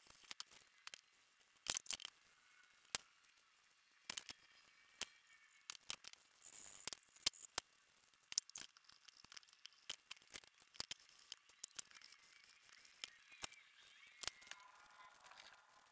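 Faint handling sounds from cleaning old grease off a drill press spindle and quill with acetone and a small brush: irregular light clicks and taps of metal parts, with a few short bursts of scrubbing.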